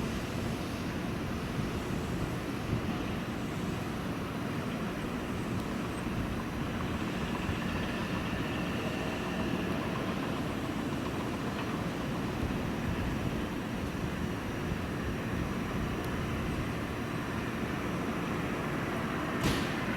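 Steady low rumble of an electric train at the station, with a faint high whine for a few seconds in the middle and a short click near the end.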